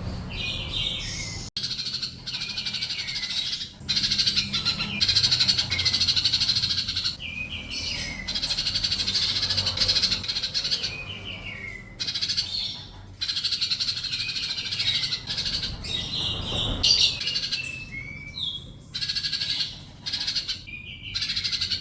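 Sunbird song: phrase after phrase of rapid, high-pitched trilling and chattering with short downward-sliding notes, separated by brief pauses.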